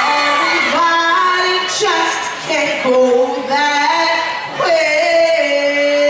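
Several women's voices singing long held notes together, shifting to a new note every second or two.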